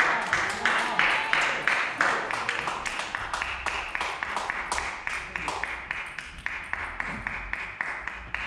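A group of spectators clapping together in a fast, even rhythm, slowly growing fainter.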